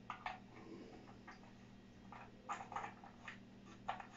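Faint scattered clicks and taps, about six in four seconds, from handling a handheld shower head and its metal hose, over a faint steady hum.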